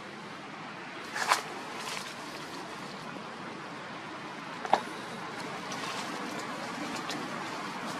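Steady outdoor background hiss with two sharp clicks, one about a second in and one near the middle.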